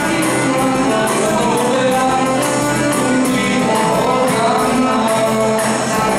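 Live band playing a song with singing into microphones, over a drum kit keeping a steady beat.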